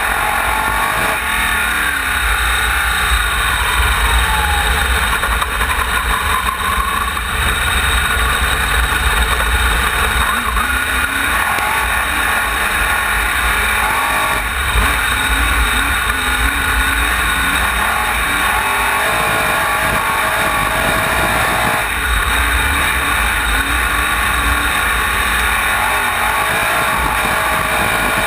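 Wingless sprint car engine at racing speed, heard from the car's own onboard camera; the revs rise and fall through the turns over a heavy low rumble.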